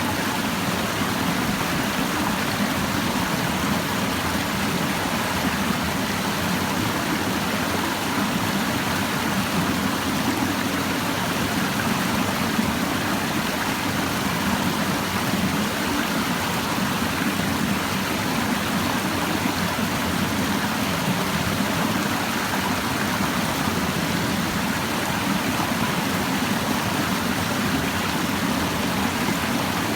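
Clear stream babbling, a steady, even rush of flowing water.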